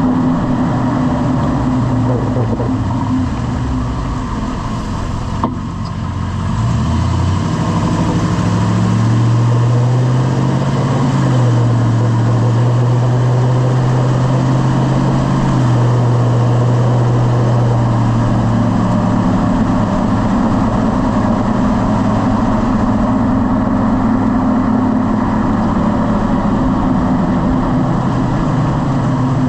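Lifted pickup truck driving: the engine note rises as it accelerates about seven seconds in, holds steady, then eases off. A single sharp click comes shortly before the acceleration.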